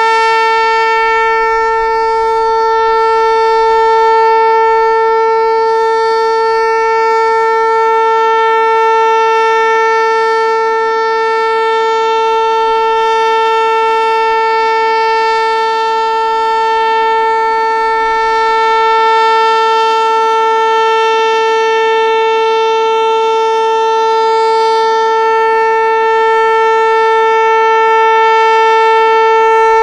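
ASC T-121 tornado siren sounding the steady Alert signal: one held tone with strong overtones, no rise or fall in pitch, swelling and easing slightly in loudness.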